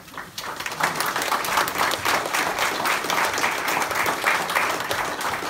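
A roomful of people applauding, dense clapping that builds over the first second and then holds steady.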